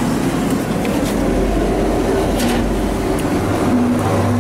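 Steady mechanical rumble and din from an arcade prize-pusher machine and the arcade around it, over a constant low hum, with a few light clicks.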